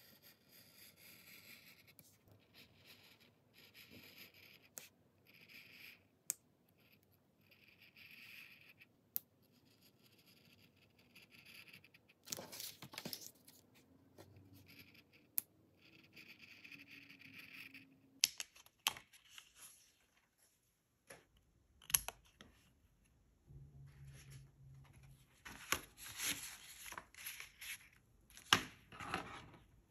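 Paper crafting sounds: repeated short scratchy strokes on paper with pauses between them, scattered light taps and clicks of tools being picked up and set down, and busier, louder scratching and handling near the end.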